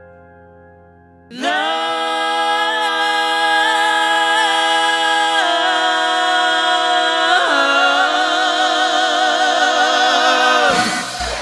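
A piano chord dies away, then a singer holds a long final note with no accompaniment, stepping in pitch a couple of times and swelling into wide vibrato before cutting off near the end. Applause starts as the note ends.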